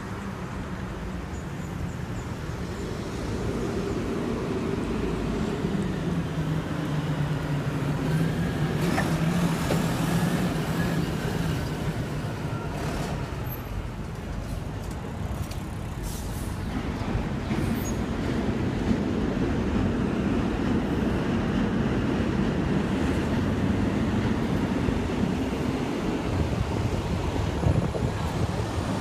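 A fire engine's diesel engine running as the truck drives through street traffic. Its low drone swells, fades a little about halfway through, then builds again, over a steady hiss of passing cars.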